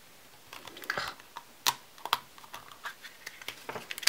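Hard plastic gashapon capsule handled and turned in the fingers: irregular small plastic clicks and taps of fingertips and fingernails on the shell, with a few sharper clicks.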